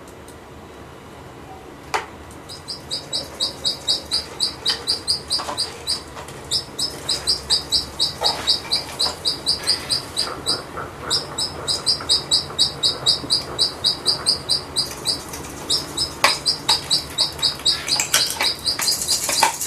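Rapid, evenly repeated bird-like chirps, about four to five a second, in runs of a few seconds with short breaks between them. Their machine-even spacing suggests an electronic bird-chirp sound played by the performance's sound system. A single sharp knock comes about two seconds in.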